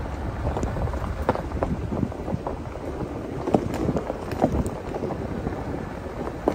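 A Jeep rolling slowly over a gravel road: a steady low rumble, with tyres crunching and stones popping in scattered clicks and knocks, and wind rumbling on the microphone.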